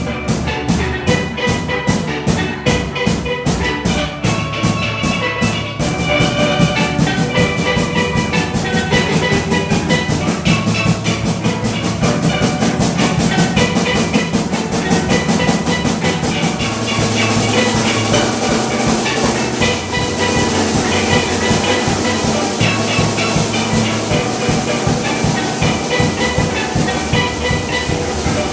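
Steel drum band playing an upbeat tune: steelpans ringing over a quick, steady drum beat, the sound growing fuller about six seconds in.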